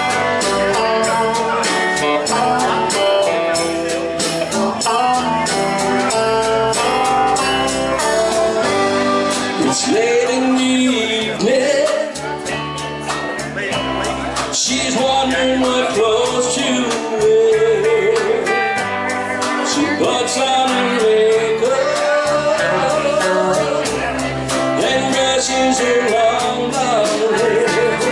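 Live country band playing: electric guitars, bass guitar and a drum kit keeping a steady beat, with a melody line that bends and wavers in pitch over the band.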